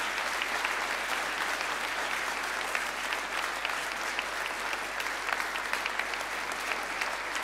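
Audience applauding steadily in a hall.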